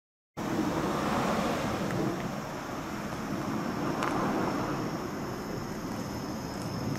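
Steady outdoor street ambience with wind rumbling on the microphone, cutting in abruptly just after the start, with a faint steady high whine above it and one brief click about four seconds in.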